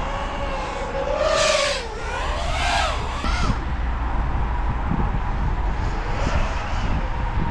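FPV cinelifter drone's brushless motors (XNova 2808 1350kv) and propellers whining in flight, the pitch rising and falling with the throttle. A sharper, louder surge of throttle comes about a second in, then the whine settles to a steadier drone.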